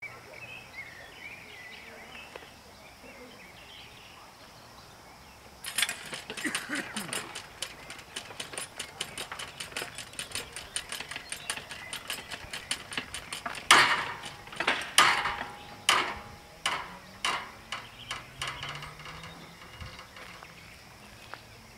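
Level-crossing warning bell that starts about six seconds in and rings as rapid, even strikes, about four a second, while the crossing barriers lower. A handful of louder, slower strikes come near the end. Faint birdsong is heard before the bell starts.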